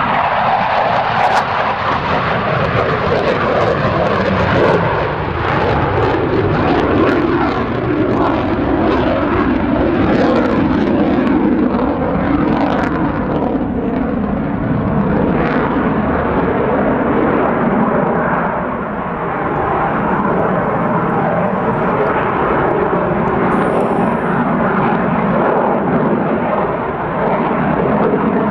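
Jet engines of an F/A-18 Hornet fighter in display flight: a loud, continuous roar that swells and eases as the jet manoeuvres, dipping briefly about two thirds of the way through.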